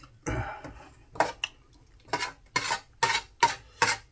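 Eating utensils scraping and clinking against a dish of food. A short scrape comes first, then a run of sharp clinks roughly every half second through the second half.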